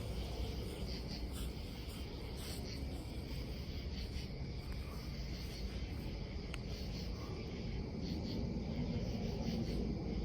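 Night ambience: crickets chirping in faint repeated pulses over a steady low rumble.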